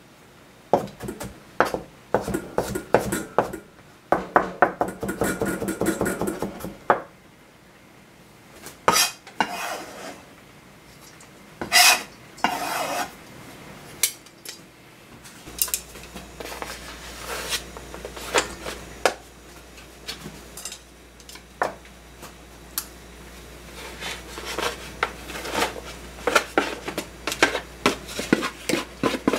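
Cookware and metal utensils clattering: irregular knocks, clinks and scrapes of pots, bowls and cutlery being handled, some strikes ringing briefly. A low steady hum comes in about halfway through.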